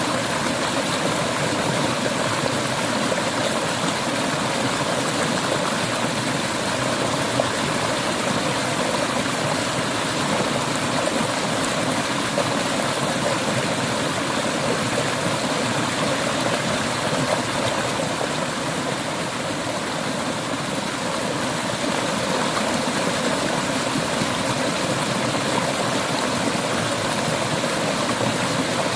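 Clear river water flowing and splashing over rocks, a steady rushing sound.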